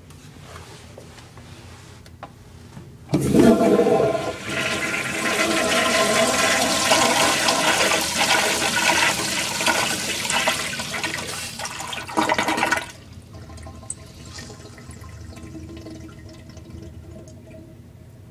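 American Standard Afwall toilet flushing on its flush valve: a sudden loud rush of water about three seconds in, lasting about ten seconds, then dropping to a quiet trickle as the bowl refills.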